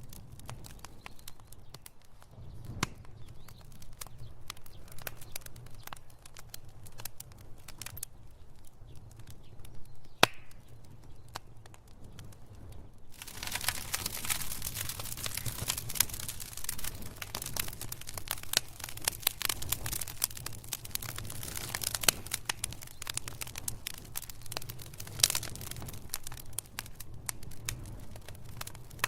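Wood fire in a fireplace crackling, with scattered sharp pops over a steady low rumble. About halfway through the crackling thickens into a dense hiss, then thins again near the end.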